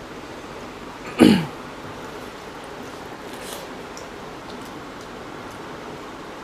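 A diner makes one short, loud throat noise about a second in, falling in pitch. Faint clicks of eating by hand come and go around it.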